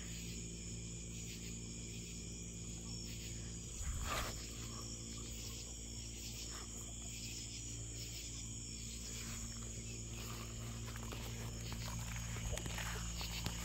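Crickets and other insects chirring steadily, with a faint regular pulse in the high chorus. A brief rustle or footstep about four seconds in.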